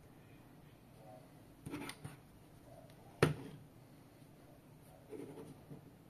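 Handling noises as a plastic battery charger and a braided USB-C cable are moved about on a desk mat: soft rustles, and one sharp knock a little over three seconds in, the loudest sound.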